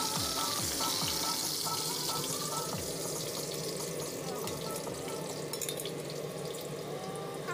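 Pork chop sizzling in hot oil in a frying pan: a steady hiss that eases off after a few seconds, with a few light clicks later on. Electronic background music with a beat plays over the first few seconds and stops about three seconds in.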